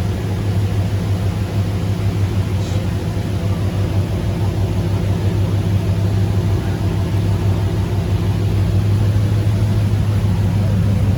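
A car engine running at a steady low drone, with no revving, growing a little louder toward the end.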